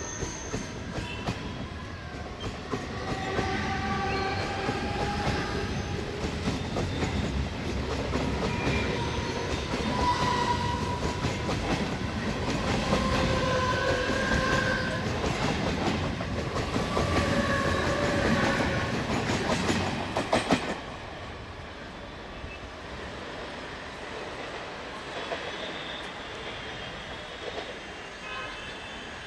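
A 15-car Mumbai suburban electric multiple unit accelerating from standstill past the platform. Wheels click and rattle over the rail joints under a loud rumble, with short electric whines from the traction equipment. About twenty seconds in the sound suddenly drops to a much quieter rumble as the train runs away.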